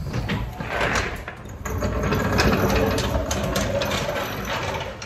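Hydraulic floor jack letting the front of a pickup truck down onto its tire and being pulled out from under it, with metal clicks and rattles, loudest in the second half.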